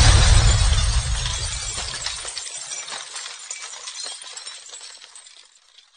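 End-screen sound effect: a sudden heavy boom with a low rumble that dies away after about two and a half seconds, and a spray of shattering, tinkling glass-like debris that fades out over the next few seconds.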